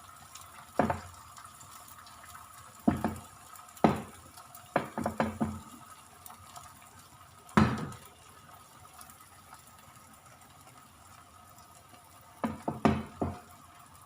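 Beaten egg frying in hot oil in a pan with a steady faint hiss, while a utensil knocks sharply against the pan or bowl several times, in a quick cluster around five seconds in and again near the end.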